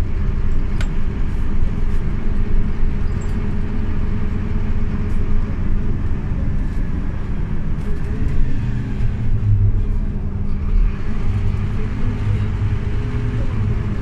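Scania OmniLink city bus running, heard from inside: a steady engine and road rumble with a held engine drone, growing heavier in the low end in the second half. A single click about a second in.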